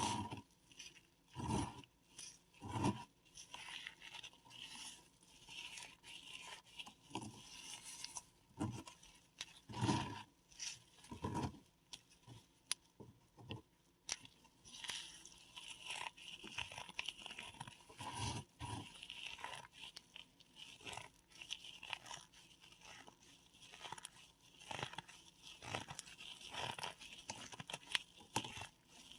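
Paradichlorobenzene mothballs being crushed and crumbled by hand: a dense, irregular crackling and grinding, with several louder single crunches scattered through.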